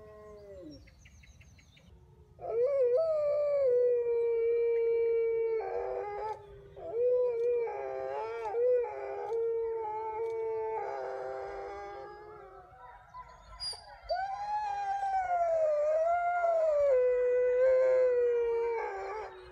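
Grey wolves howling. After a short lull, long steady howls set in about two seconds in, with more than one voice overlapping. About fourteen seconds in, a new howl rises, wavers and settles lower before it cuts off.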